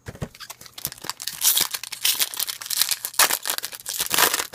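A foil trading-card pack wrapper being crinkled and torn open by hand, a dense, irregular crackling that keeps on throughout.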